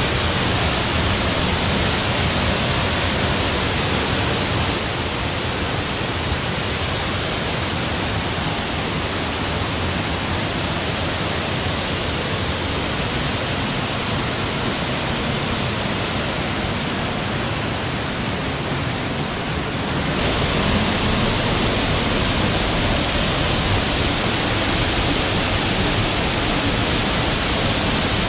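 Waterfall's steady rushing water, a dense even noise with no pauses. It drops slightly about five seconds in and comes back up about twenty seconds in.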